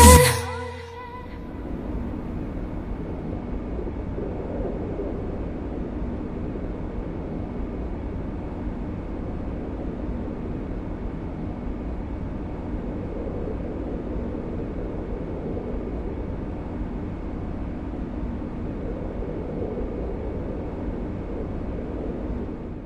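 The song's last note fades out within the first second, then a steady low ambient rumble with faint held tones runs on evenly and stops at the very end.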